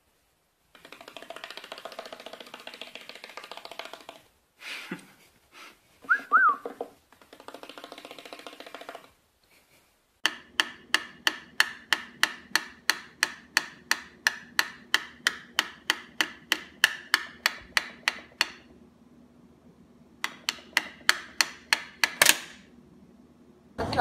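A cockatiel pecking rapidly at a small laptop, a long even run of sharp taps about four a second, then a pause and a shorter second run. Before the taps there are quieter cockatiel whistles with one brief rising and falling note.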